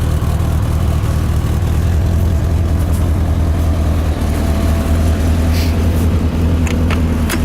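A 1984 Corvette C4's stock 5.7-litre V8 idling steadily through its new mufflers and exhaust system, a low, even note with no revving.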